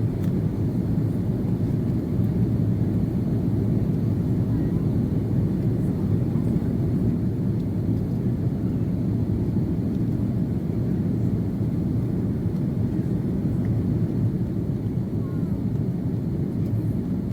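Steady low roar inside the cabin of an Airbus A330-300 climbing after takeoff: its two General Electric CF6-80E1A4 turbofans at climb power, along with rushing air around the fuselage.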